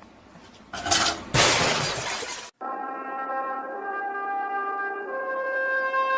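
A loud crash, two noisy bursts in quick succession, the second lasting about a second, like something falling and shattering. It cuts off suddenly, and music with long held brass-like chords follows.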